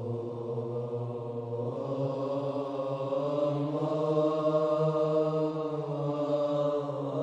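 Slow male chanting in long held notes, laid under the opening title. The pitch steps up a little about two seconds in.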